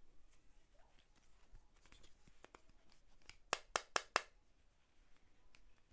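A mobile-phone chest-mount harness being handled: faint rustling of its straps, then four sharp plastic clicks in quick succession about three and a half seconds in, from the phone holder being worked.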